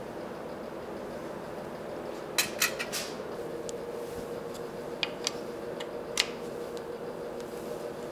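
Sharp metallic clinks and clicks from hands working on the metal head of a DoAll drill press: a quick run of four about two seconds in, and three more spread over the next few seconds. A steady hum runs under them.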